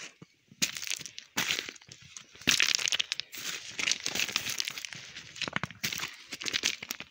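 Footsteps crunching on the rough surface of a rain-damaged road, irregular steps with crackling grit and stones underfoot.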